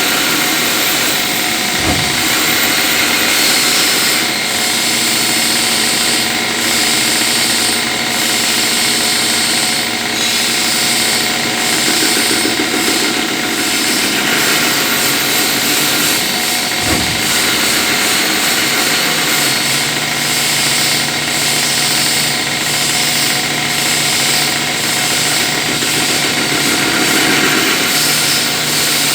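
CNC lathe running steadily while turning a pulley: a dense mechanical hum layered with high hiss, broken by two short knocks, one about two seconds in and one about halfway through.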